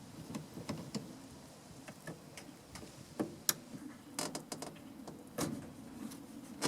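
Scattered light clicks and knocks of a hose clamp and rubber drain hose being worked off a top-load washer's drain pump by hand.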